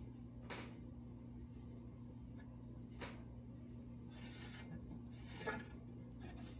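Faint scratching of a marking tool drawn along a steel rule across a pressed-steel toy truck cab, a few short strokes, over a steady low hum.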